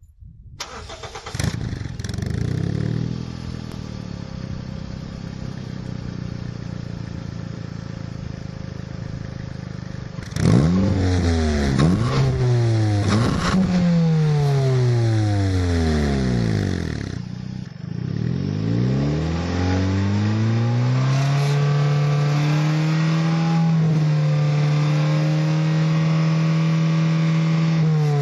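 Exhaust of an early Toyota Vitz RS Turbo with an adjustable inner silencer set about 70% open, run for a sound-level test. The engine starts and idles for about ten seconds, is blipped three times in quick succession, then is revved up and held at high revs for several seconds before dropping back near the end.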